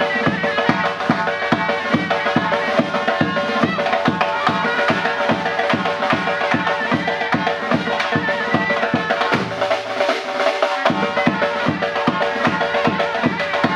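Uzbek surnay, a double-reed shawm, playing a melody over a steady drum beat of about three strokes a second. The drum strokes drop out for a moment about two-thirds of the way in, then resume.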